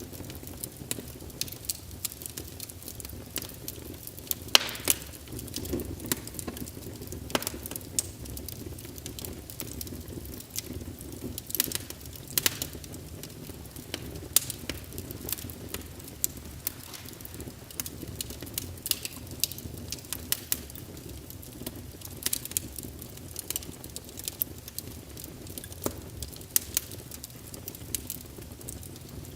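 Fireplace fire crackling, with frequent irregular sharp pops and snaps, a few louder than the rest, over a low steady rumble of the flames.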